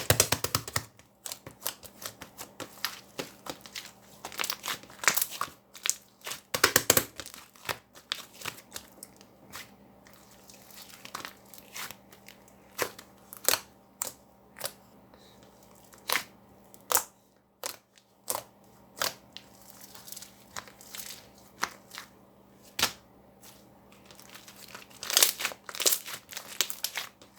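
Handmade slime being squeezed, stretched and pressed by hand, giving irregular sticky clicks, pops and crackles, with denser bursts of crackling now and then.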